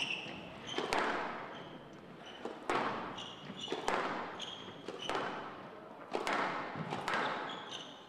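Squash rally: sharp hits of the ball on rackets and court walls, about one a second, each ringing on in the large hall, with short high squeaks from players' shoes on the court floor.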